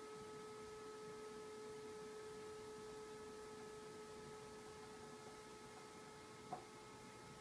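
Faint, steady electrical hum of a few held tones over low hiss, with one soft click about six and a half seconds in.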